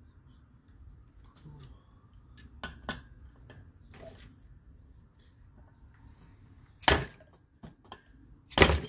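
Two sharp hammer strikes, nearly two seconds apart and the second the louder, on a half-inch extension and 17 mm socket set over a valve spring retainer on a Toyota 2AR-FE cylinder head, knocking the spring down to free the valve keepers. Light clicks of tools being handled come before them.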